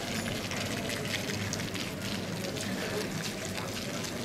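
Water splashing steadily from a fountain set in the paving of a town square.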